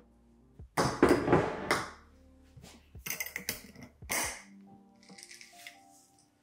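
A glass jar with a wire-clasp lid is handled on a table: short clinks, knocks and scrapes, loudest about a second in, with more around three and four seconds. Soft background music plays underneath.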